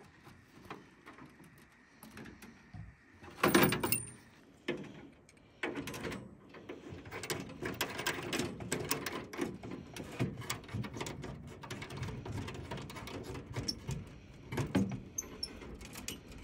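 Metal clatter and rattling from a portable propane camp stove being set up, with a loud clang about three and a half seconds in. After that comes a steady run of small metallic clicks and scraping as an L-shaped metal gas tube is turned into the stove's brass inlet fitting.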